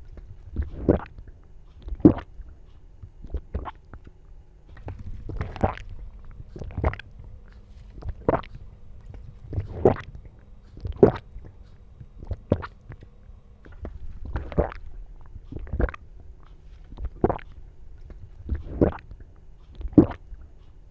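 A person gulping again and again, a throat swallow about every second or so, each a short wet click over a low rumble.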